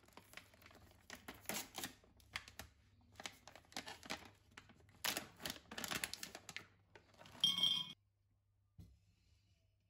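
Chocolate pouch being torn open and crinkled in the hands, with a run of rustling and tearing strokes. Near the end comes a short, loud ringing clatter of tableware.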